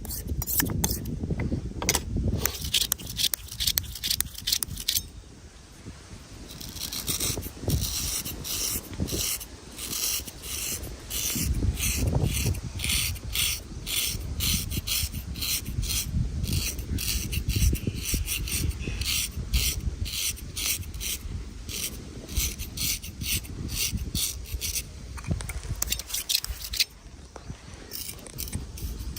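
Razor scraping over skin and hair in short, quick, repeated strokes, a dry rasping sound.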